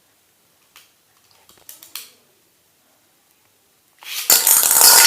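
A few light clicks as a Beyblade is fitted to its launcher, then about four seconds in a sudden loud rasping whir as the ripcord launches it and the metal-wheeled top starts spinning and clattering in its stadium.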